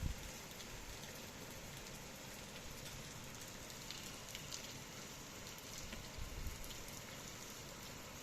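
Rain falling steadily, an even hiss with scattered sharp drip ticks. A brief low rumble comes about six seconds in.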